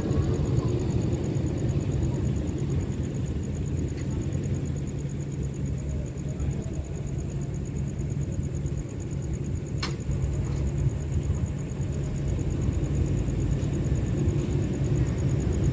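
Stationary diesel passenger train idling: a steady low rumble with a constant hum. One sharp click about ten seconds in.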